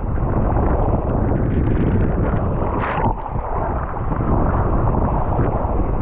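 Wind buffeting a GoPro action camera's microphone over water rushing past a kiteboard riding at speed. There is a short, brighter hiss about three seconds in.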